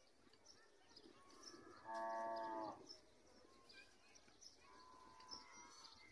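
A cow moos once, a loud steady call of just under a second about two seconds in, over faint high bird chirps. A second, fainter drawn-out call that falls slightly follows about five seconds in.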